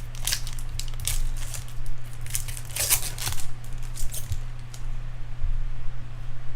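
Trading cards and foil pack wrappers being handled: short bursts of crinkling and sliding, the strongest about three seconds in, over a steady low electrical hum.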